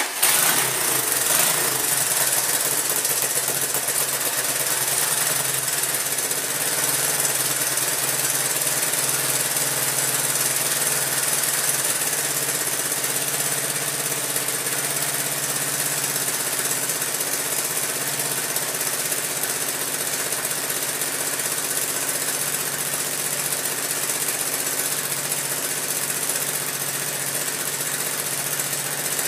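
Honda ATC185S three-wheeler's air-cooled four-stroke single-cylinder engine firing on a cold start right at the beginning, running a little faster for the first couple of seconds, then idling steadily.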